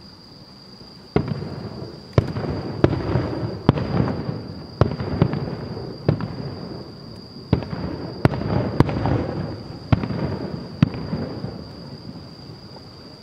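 Aerial fireworks shells bursting in a display: about a dozen sharp bangs, beginning about a second in and coming every half second to a second, each trailing a rolling echo. The bangs thin out near the end.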